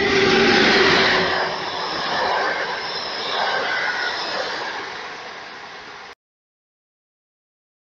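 Electric locomotive and its passenger coaches passing along a station platform. The loud rumble and rattle of the train is strongest at first, fades over several seconds, then cuts off abruptly about six seconds in.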